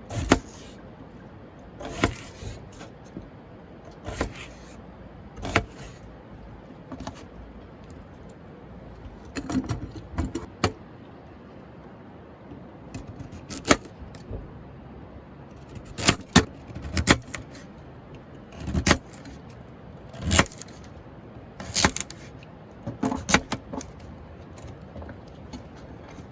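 Irregular sharp clinks and knocks, one every second or two and sometimes several in quick succession, over a faint steady background: hard objects being handled and set down.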